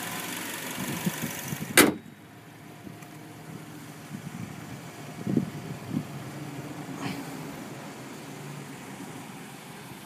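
2012 Chevy Malibu LT's 2.4-litre Ecotec straight-four idling steadily. A sharp knock comes about two seconds in, and after it the idle is fainter.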